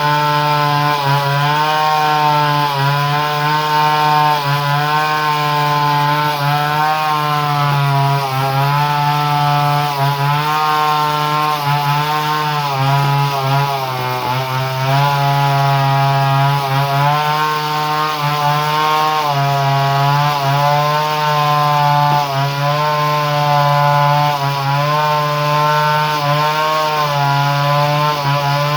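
Two-stroke chainsaw engine running at high revs without a break, its pitch dipping briefly and recovering every second or two.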